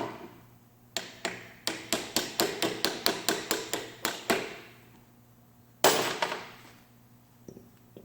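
A hammer striking repeatedly: a quick run of about fifteen blows, about five a second, that stops after about four seconds, then one louder single blow near the end.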